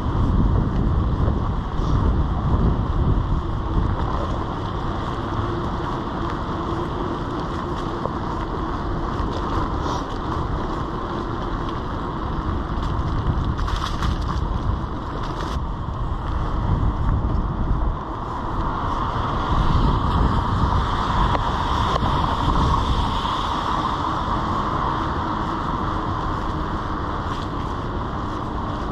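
Steady wind buffeting the microphone of a bicycle rider, over the hiss of bicycle tyres rolling on rain-soaked pavement. A few short clicks come about halfway through.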